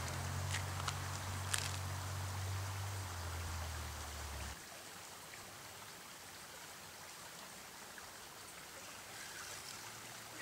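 Steady rush of a shallow river running over riffles. A low hum underneath stops abruptly about four and a half seconds in, and a few small clicks sound in the first two seconds.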